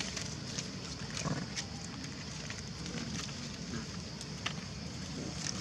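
Steady outdoor hiss with a low wind rumble on the microphone, and scattered short clicks and rustles of dry leaf litter as the monkeys shift about.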